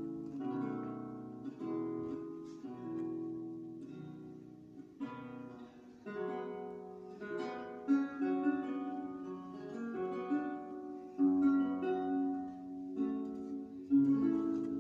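Theorbo played live: plucked bass notes and chords ring out and decay, between runs of single notes, with sharper chord strikes about eight, eleven and fourteen seconds in.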